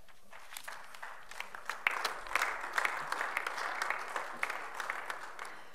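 Applause from the members of a parliament chamber, many hands clapping, growing louder about two seconds in and thinning out near the end.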